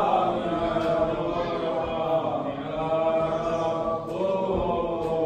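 Coptic Orthodox liturgical chant: long held sung notes that slide slowly in pitch, with short breaks between phrases.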